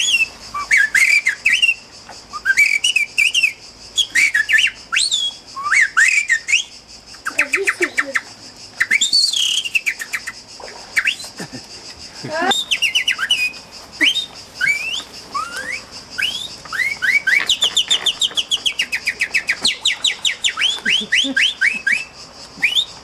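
Bird calls imitated by whistling: quick rising and falling chirps, then long rapid trills of chirps through the second half.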